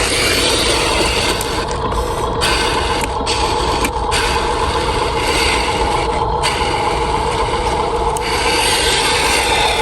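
Electric motors and gearboxes of a Huina radio-controlled toy bulldozer and dump truck whining steadily, with a rough scraping sound over them.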